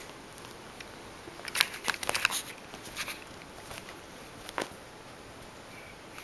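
A kitten's paws and claws scrabbling and scratching on fabric couch upholstery as it pounces, making short scratchy rustles and taps, the loudest cluster about two seconds in and a few single ones later.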